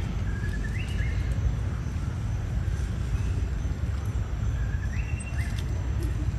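Steady low outdoor rumble, with a short two-pitch whistled call about a second in and another about five seconds in; each call holds one note and then steps up higher.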